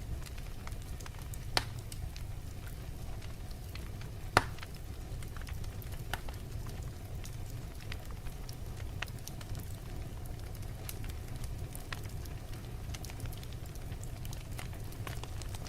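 Wood burning in a fireplace: a steady low rumble with scattered small crackles, and two sharper pops about one and a half and four and a half seconds in, the second the louder.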